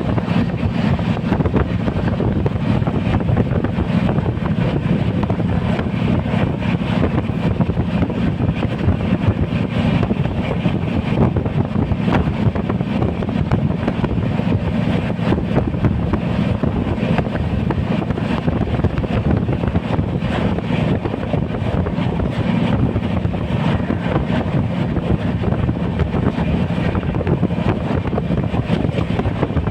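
Steady rumble and rushing noise of a moving train heard from aboard, with wind buffeting the microphone.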